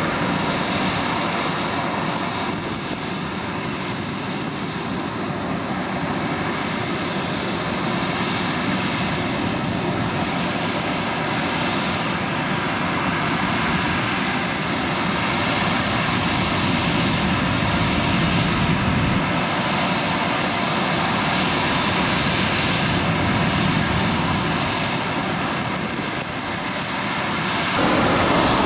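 Jet airliner engines running loud and steady at close range, from several airliners in turn: one climbing out after takeoff, a Boeing 737 taxiing, then an Airbus A320-family jet on landing approach. The engine noise changes abruptly a few times, most clearly near the end, where separate recordings are cut together.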